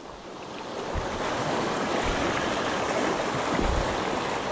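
Small waves washing in over rounded boulders at the shoreline, a steady rushing of surf through the stones, with a few low thumps of wind on the microphone.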